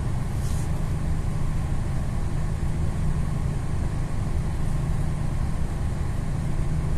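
Golden Dragon city bus engine idling while the bus stands with its doors closed, heard inside the cabin as a steady low rumble. A short hiss comes about half a second in.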